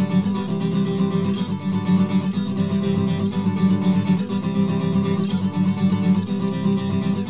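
Background music: acoustic guitar strumming with a steady rhythm.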